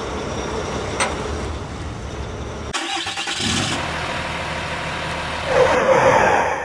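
Vehicle engine sound effect laid over toy truck footage. It runs steadily, breaks off and restarts about three seconds in, and grows louder with a rising rev near the end as the toy truck launches off the ramp.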